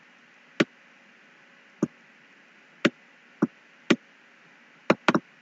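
Computer mouse button clicks: about seven sharp, unevenly spaced clicks, the last two close together, over a faint steady hiss.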